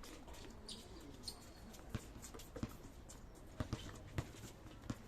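Basketball shoes squeaking sharply on a court floor about a second in, then several hard thuds of a basketball bouncing through the second half.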